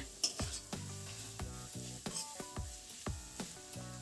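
Chopped onions frying in mustard oil in a kadai, sizzling while a spatula stirs them with repeated short scraping strokes against the pan. Soft background music plays underneath.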